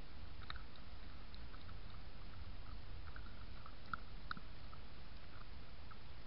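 Foxes feeding right beside the trail camera: a string of small, irregular crunching clicks of chewing, loudest about four seconds in, above the camera's steady low hum and hiss.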